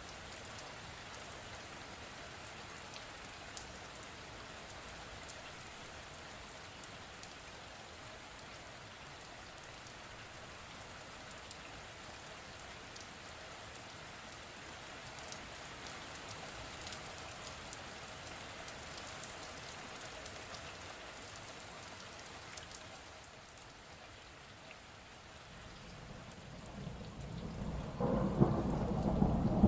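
Steady rain with scattered drop ticks. Near the end a deep thunder rumble builds and breaks loudly, the loudest sound here.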